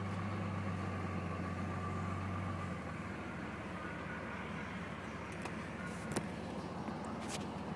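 A motor vehicle's engine running steadily, its low hum dropping lower and a little quieter about three seconds in, with a couple of faint clicks near the end.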